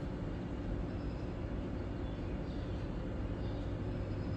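Steady low hum and rumble of background noise, with no clear event on top.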